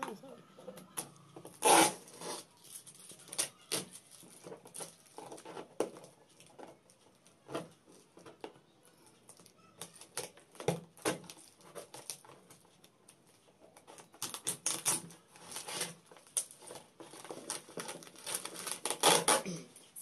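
Utility knife slitting the packing tape on a cardboard carton: a run of irregular scraping and tearing strokes. The loudest comes about two seconds in and a quick cluster follows near the end.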